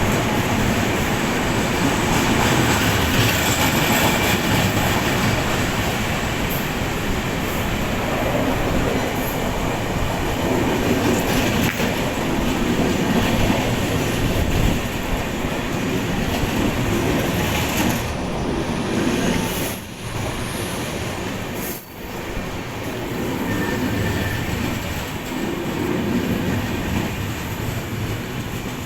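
Passenger train running past on the line: a loud, steady rumble of wheels on rail with the clatter of the coaches, dipping briefly twice near the end.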